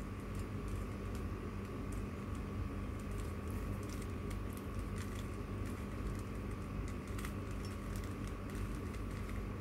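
Irregular light plastic clicks of a Rubik's-type puzzle cube being turned by hand, over a steady hum.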